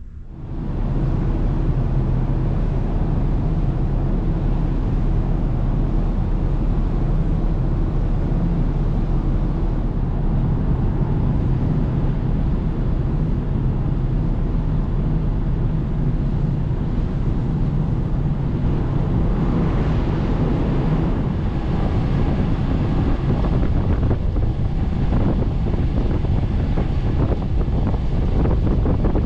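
Wind buffeting the microphone on the open deck of a large car ferry under way, over the steady low hum of the ship's engines and the rush of water churned along the hull. It comes in suddenly at the start.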